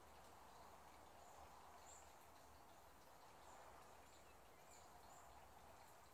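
Near silence: faint outdoor background hiss with a few faint, short, high chirps scattered through it.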